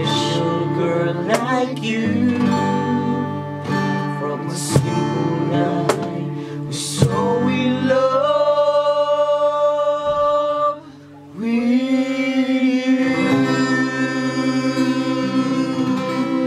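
Two acoustic guitars strummed while several male voices sing together. From about eight seconds in, the voices hold long notes; the music drops out briefly around eleven seconds, then picks up again with more long held notes.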